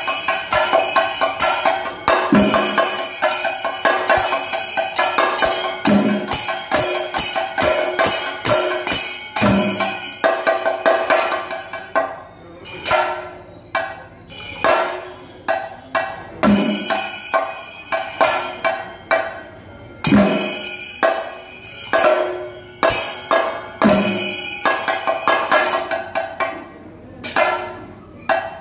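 Thayambaka drumming on chenda drums played with sticks: the lead chenda's fast strokes over the accompanying chendas, with ilathalam cymbals ringing. The drumming is dense through the first half, then thins into spaced phrases, with a deep stroke landing about every three and a half seconds.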